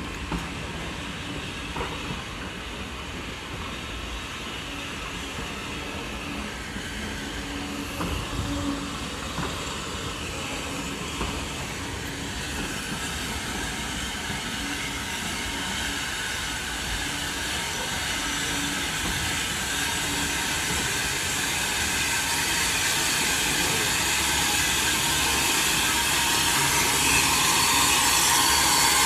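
Passenger coaches of a steam-hauled train rolling slowly by, wheels clicking over the rail joints with a low rumble. From about halfway a steady steam hiss from a steam locomotive standing close by grows louder toward the end.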